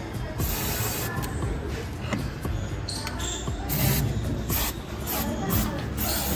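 Aerosol can of Tom CAT No Entry rat repellent hissing in a series of bursts of varying length as it is sprayed over engine-bay parts and wiring, each burst starting and stopping sharply.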